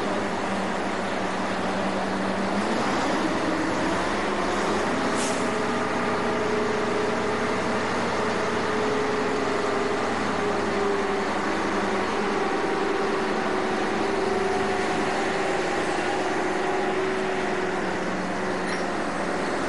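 Boat engine running steadily, with a low engine tone that steps up slightly about two and a half seconds in.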